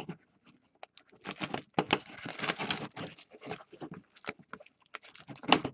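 Plastic shrink wrap being torn and crinkled off a sealed box of football trading cards, in a run of irregular rips and crackles, with a sharp, loud crackle near the end.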